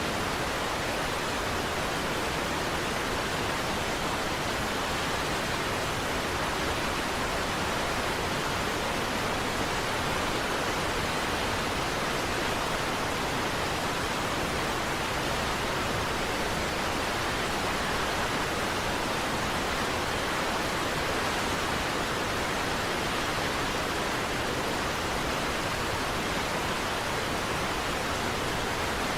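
Niagara Falls waterfall: a steady, unbroken rush of falling water.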